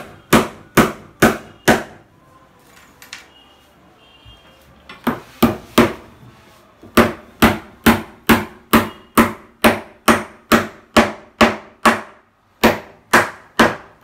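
Hammer blows on the wooden side panel of a box bed, fixing the hydraulic lift's mounting bracket. Four blows come first, then a pause of about three seconds and a few more, then a steady run of about two blows a second.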